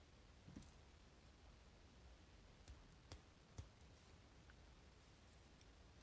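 About four faint, sharp clicks of steel tweezers against the small driver pins and metal housing of a dimple lock as the pins are picked out and set down, spread over the first few seconds.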